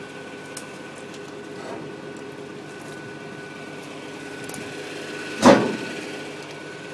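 Excavator engine running at a steady speed, with one loud clank about five and a half seconds in.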